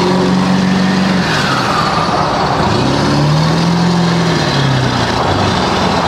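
Straight-piped 7.3-litre Powerstroke V8 turbo diesel of a Ford F-250 under hard acceleration, heard from inside the cab, with turbo whistle. The engine note drops about a second in, climbs again and falls back near the end.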